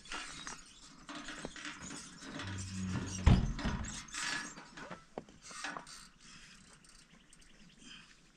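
Rough stones scraping and grinding against each other as a large rock is worked by hand, with scattered sharp clicks of stone on stone and one heavy knock a little over three seconds in.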